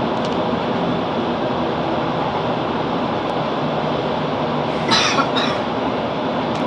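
Steady running noise of a Class 165 Networker Turbo diesel multiple unit, heard from inside the carriage, with a short double burst of hissy noise about five seconds in.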